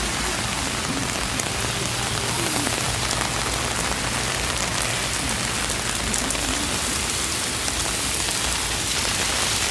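Heavy rain falling steadily on an umbrella held overhead, a constant even hiss with scattered sharp drop ticks.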